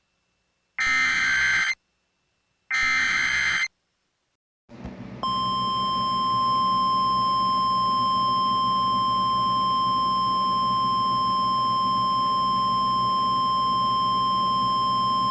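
Emergency alert data bursts: two harsh, one-second bursts of SAME header tones with a short gap between them. After a pause a hiss comes up, and a NOAA Weather Radio-style warning alarm begins about five seconds in: one steady, unbroken high tone.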